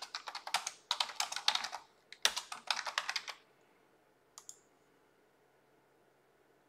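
Rapid typing on a computer keyboard for about three and a half seconds, with a short pause in the middle, then two quick clicks about a second later.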